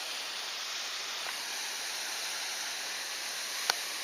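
Steady rush of flowing creek water, with one sharp click near the end.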